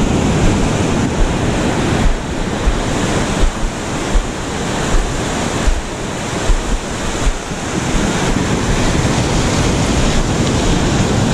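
Ocean surf breaking and washing up a sandy beach in a steady rush, with wind buffeting the microphone in short low gusts.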